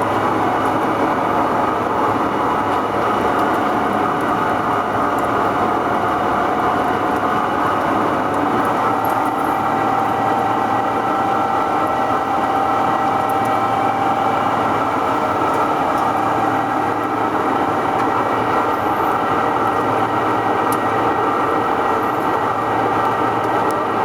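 Heavy CNC lathe turning a rolling-mill roll: a steady machine noise with several high tones held throughout.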